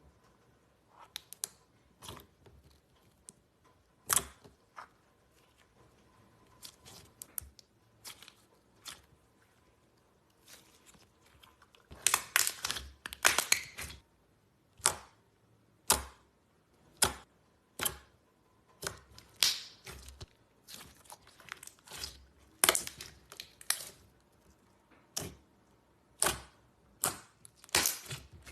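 Slime being worked by hand, making irregular sharp pops and clicks, thickest in a run of crackling around the middle.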